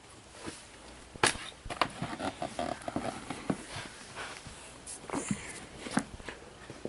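Irregular knocks and clanks of work on a damaged garage door's metal hardware, the sharpest about a second in, with a brief faint squeak or ring of metal between them.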